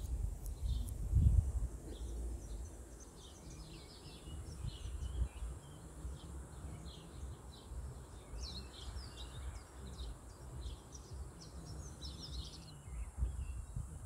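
Small birds chirping and twittering in many short high calls, busiest in the second half and thinning out near the end, over low wind rumble on the microphone, with a strong gust about a second in.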